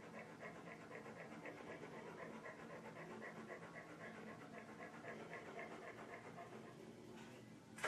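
Faint, quick, even panting of an animal, about four breaths a second, with a short knock near the end.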